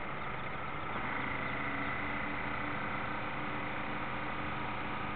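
Drive motor of a radio-controlled model destroyer, heard from on board, running with a steady whine over water noise; it gets a little louder about a second in.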